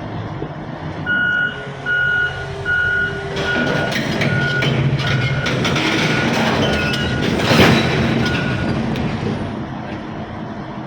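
Heavy excavator's diesel engine running with a backup alarm beeping. Three loud beeps come about a second in, then fainter beeps follow about every two-thirds of a second. Midway the engine grows louder with scattered clanks and one loud noisy burst.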